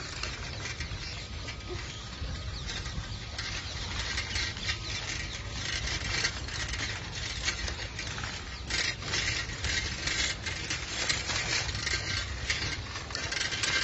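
Bicycle rolling over a rough brick-paved path: a dense crackle and rattle of the tyres on the uneven surface over a steady low rumble of wind on the microphone. The crackle grows busier about halfway through.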